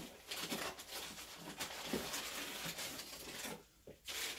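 Rustling of cardboard and plastic packaging as a camera body is lifted out of its box in its wrapping, with a few light knocks; the rustling pauses briefly near the end.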